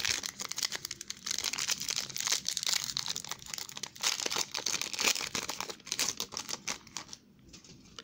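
A trading-card pack's foil wrapper being torn open and crinkled by hand: a dense crackling that dies away about seven seconds in.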